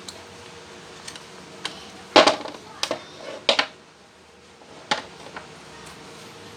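Metal parts and hand tools knocking and clinking: a string of separate sharp knocks, the loudest about two seconds in, during work on a broken jackhammer.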